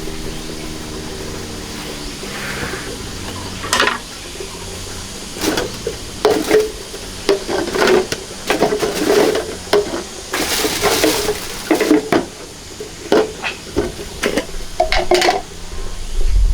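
Irregular knocks and clinks of utensils or containers being handled, with a short rush of water a little past the middle.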